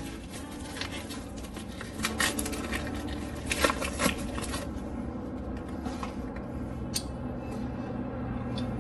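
New brake pads being taken out and handled: small clicks and clinks of metal-backed pads and packaging, a busy cluster about two to four seconds in and one sharp click near the end.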